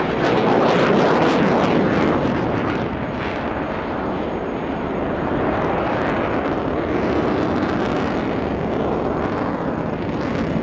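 An EF-18A Hornet's two General Electric F404 jet engines: a continuous jet roar as the fighter flies its display. It is loudest in the first two seconds, then eases a little and holds steady.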